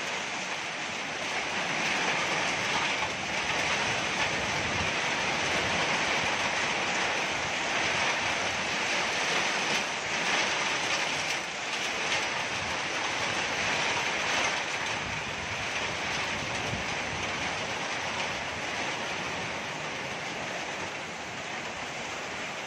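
Heavy rain pouring down in a storm, a steady hiss with slight swells as wind gusts through the trees.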